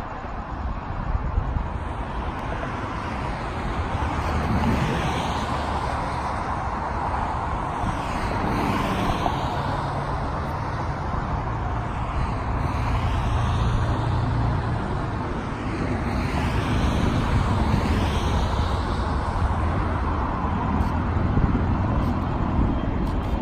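Busy freeway traffic: a steady noise of tyres and engines, with single vehicles passing close by about every four seconds.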